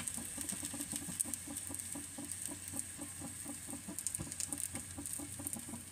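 Eggplant slices frying in a little oil on a hot tawa: a steady sizzle with fine crackling.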